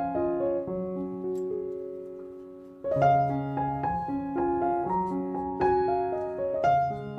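Background piano music: a gentle melody of struck notes, with one chord held and fading away before the tune starts again about three seconds in.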